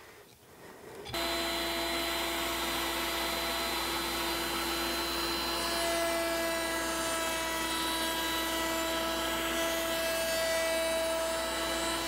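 Table-mounted router with a flush-trim bit running at speed and trimming a plywood divider flush to a template jig: a steady high-pitched whine over a rushing noise. It comes on suddenly about a second in.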